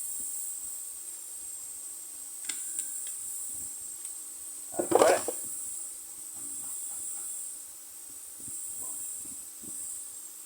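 Steady high hiss of air blowing out of an open copper tube, pushed by a freezer's refrigeration compressor running with no refrigerant charge. Small clicks of handling, and one brief louder knock about five seconds in.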